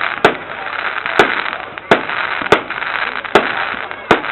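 Fireworks going off: six sharp bangs, one every two thirds to four fifths of a second, over a continuous crackling.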